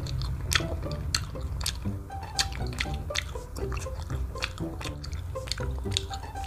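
Background music with a melody of short stepping notes over a steady bass, with irregular wet clicks of chewing and lip-smacking from eating a chicken wing.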